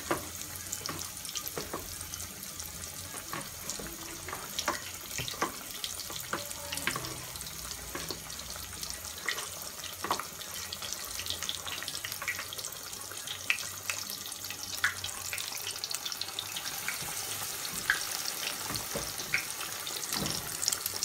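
Battered potato slices frying in a pan of hot oil: a steady sizzling hiss with scattered crackles and pops.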